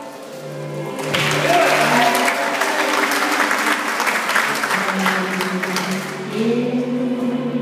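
Audience applauding, starting about a second in and dying away about five seconds later, with recorded music playing underneath.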